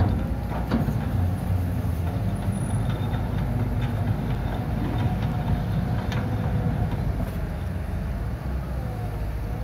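Hitachi EX130 amphibious excavator's diesel engine running steadily under load, with a faint wavering whine and a few sharp clanks as the machine and its boom move.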